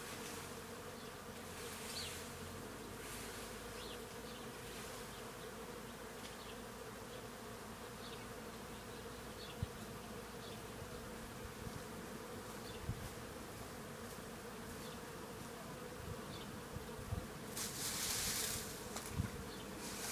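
Many bees buzzing as they feed on the flowers of a tree: a steady, dense hum. A brief rush of hiss comes near the end, with a few soft low knocks scattered through.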